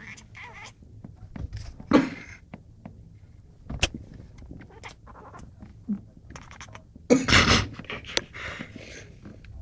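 Burmese cat making weird noises, a run of short breathy bursts with a few sharp clicks and one louder burst about seven seconds in.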